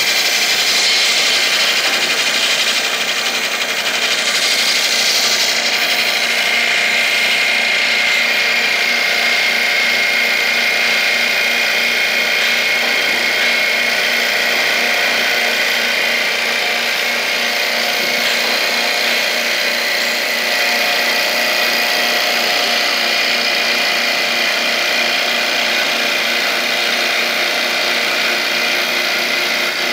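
SOSN two-spindle CNC wood lathe turning two wooden balusters at once: the steady noise of the cutters shaving the spinning wood, with a high whine.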